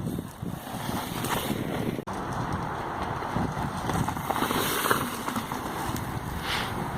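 Wind buffeting the microphone: a steady rough rumble that drops out for an instant about two seconds in.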